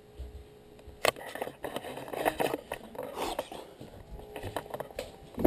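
Faint rustling and scraping, with a single sharp knock about a second in.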